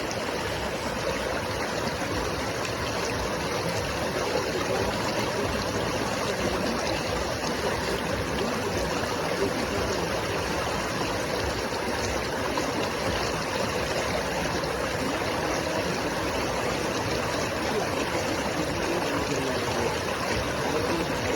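River water running and splashing over rocks, a steady rushing sound.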